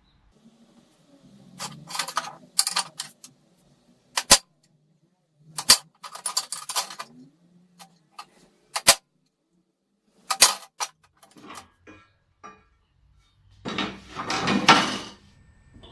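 Metal parts and tools being handled: sharp clinks and clatters at irregular intervals, with a longer rattling clatter near the end.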